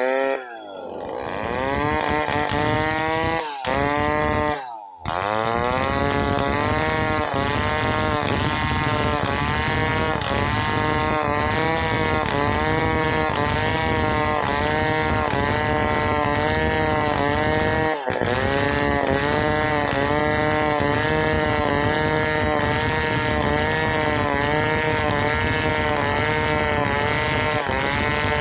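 A two-stroke gasoline chainsaw ripping lengthwise along a timber plank. In the first few seconds the engine revs up and down, with short breaks. It then runs steadily under load, its pitch dipping and recovering about twice a second as the chain bites into the cut.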